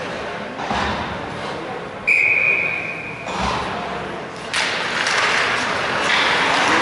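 Hockey referee's whistle: one short steady blast about two seconds in, trailing off over the next second. From about four and a half seconds the broad noise of the rink, skates and sticks on the ice, grows louder as the faceoff is taken.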